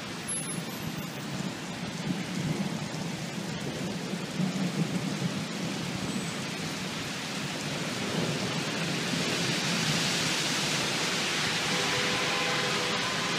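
Heavy rain falling under a low rolling rumble of thunder that swells twice. About eight seconds in, the rumble fades and the rain's hiss grows louder and steadier.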